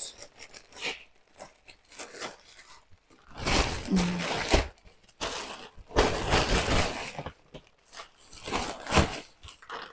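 Shopping bags and plastic and paper wrapping rustling and crinkling in irregular bursts as items are pulled out and unwrapped.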